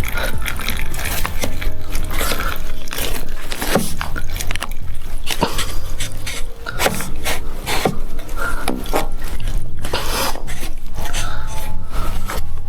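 PVC irrigation pipe being worked into a plastic connector fitting: repeated clicks, knocks and scrapes of plastic on plastic over a steady low rumble.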